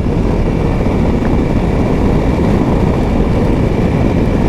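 Triumph Tiger 660 motorcycle under way, heard as a steady rush of wind and road noise over the microphone with the engine running underneath.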